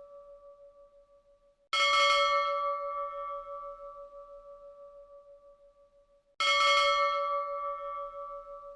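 Hindu temple bell struck twice, about five seconds apart. Each strike rings out with a clear, multi-toned pitch and fades slowly with a wavering pulse, while the tail of an earlier strike dies away at the start.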